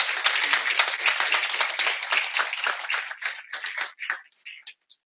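Audience applauding, the clapping thinning out to a few last scattered claps and stopping near the end.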